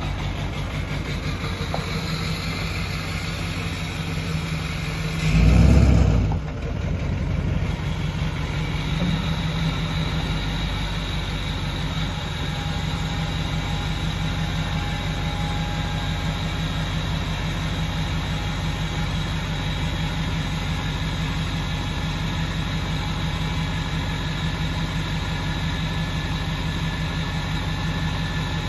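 6.6-litre V8 diesel engine of a Chevrolet C4500 truck idling steadily. About five and a half seconds in there is a brief, loud, low rush of sound lasting about a second.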